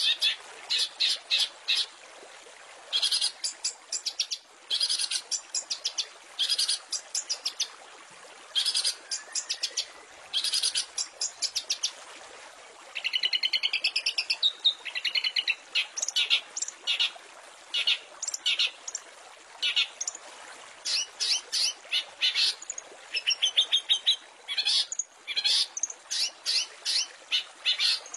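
Long-tailed shrike (cendet) singing a long run of harsh, rapid chattering phrases and quick trills, repeated with short gaps, with a fuller wavering phrase about halfway through. There is a steady hiss underneath.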